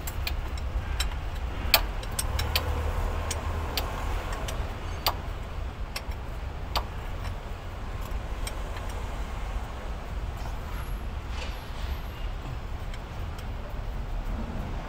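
Irregular sharp metal clicks and clinks from a hand tool and bolts being fitted on a diesel truck engine's injection pump, over a steady low rumble.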